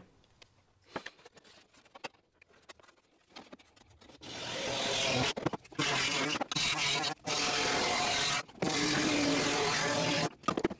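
Pneumatic straight die grinder cutting the sheet-steel floor edge of a truck cab. It starts about four seconds in and runs in several stretches, cutting off briefly half a dozen times.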